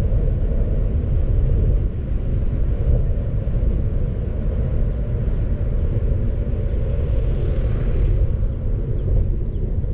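Steady low rumble of a car driving down a mountain road: road and wind noise, with a short swell of hiss about three quarters of the way through.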